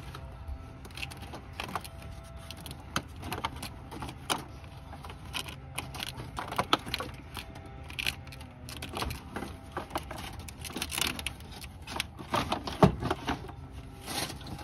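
Plastic radiator fan shroud clacking and rattling against the radiator and its mounting tabs as it is worked into place, an irregular string of clicks and knocks with a sharper knock near the end. A steady low hum runs underneath.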